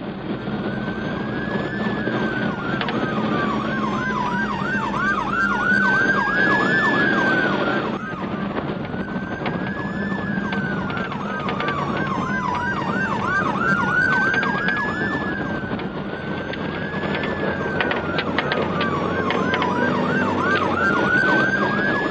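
Electronic emergency-vehicle siren cycling through its modes: a slow falling wail, a run of fast yelps at about four a second, then a slow rising wail, the pattern repeating about every eight seconds. Steady vehicle and road noise runs underneath.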